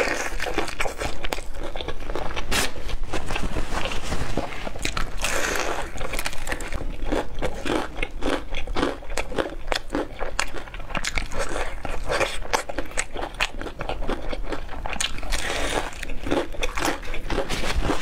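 Crispy battered fried chicken being bitten and chewed close to the microphone, the fried crust crunching in a dense run of sharp crackles.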